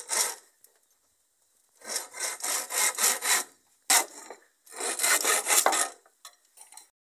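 Hand saw cutting across a wooden board in quick back-and-forth rasping strokes, in short runs broken by pauses, with a single sharp knock about four seconds in.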